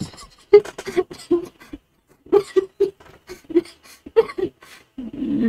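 A man's stifled laughter held in a mouthful of water: short bursts through the nose and closed lips, in several fits a second or so apart.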